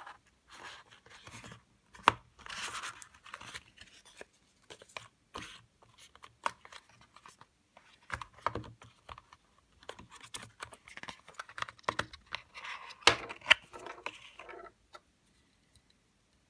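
A cardboard box being opened by hand: the inner tray scraping and rustling as it slides out of its sleeve, with scattered clicks and taps as a small plastic motion sensor is lifted out and handled. The handling stops about a second and a half before the end.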